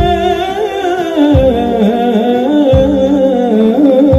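Live Arab orchestral music: string ensemble with a wavering, ornamented melody line over sustained tones, and a low drum beat about every second and a half.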